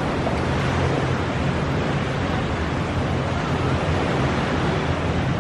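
Steady rushing beach ambience of surf and wind buffeting the microphone, even throughout with a low rumble and no distinct events.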